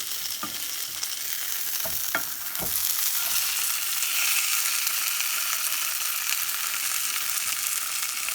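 Sirloin steak sizzling in butter and oil in a heavy pan kept hot by its own heat after the stove is turned off: a steady sizzle with a few sharp pops in the first three seconds.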